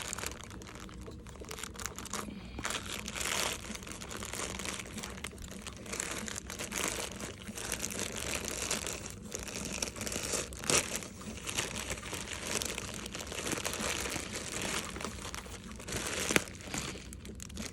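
Packaging being handled and unwrapped: continuous crinkling and rustling, with a few sharper crackles.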